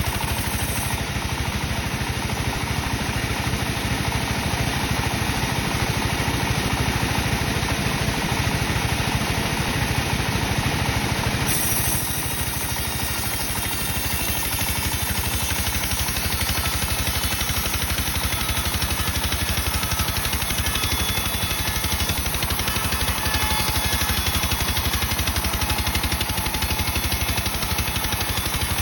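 Sawmill machinery running steadily while slicing dry teak timber, with a fast, even pulse. Its tone shifts about twelve seconds in.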